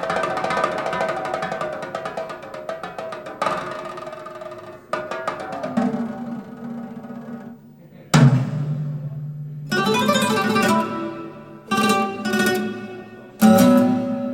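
Recorded music played back over a high-end hi-fi loudspeaker system: fast plucked-string playing, guitar-like, broken by a few sudden loud attacks. A deep low note is held for about a second and a half, a little past the halfway point.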